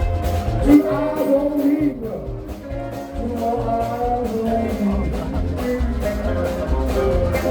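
Live blues band playing: bending melodic lines over a steady bass and drum beat.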